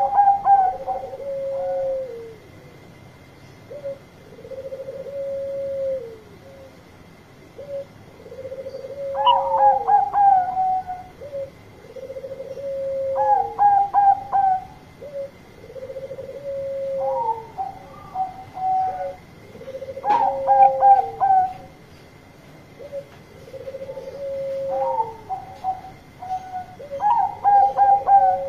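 Zebra dove (Bangkok-type perkutut) cooing loudly and steadily, the song repeating about every four seconds: a quick run of clipped, stuttering notes, then a long lower coo that drops at its end.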